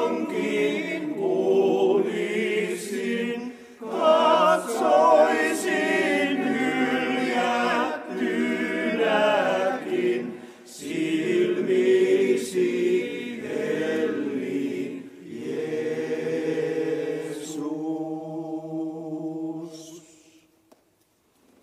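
Men's choir singing a cappella in several phrases. The song ends on a long held chord that dies away about twenty seconds in.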